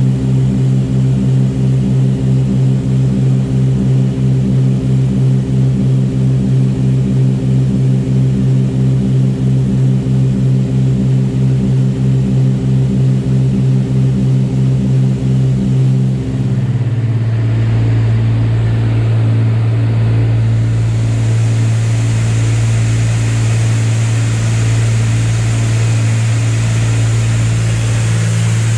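The Cessna 310R's twin six-cylinder piston engines and propellers droning in cruise, heard inside the cockpit. For the first half the drone pulses with a regular beat; about halfway through its pitch drops slightly and it turns steady.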